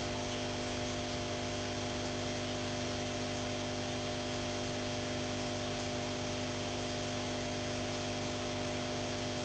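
Steady electrical hum made of several held tones over an even background hiss, unchanging throughout with no distinct events.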